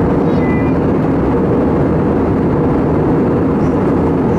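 Steady, loud jet engine and airflow noise of an Airbus A320 heard inside the passenger cabin, a deep even rumble with a hiss above it.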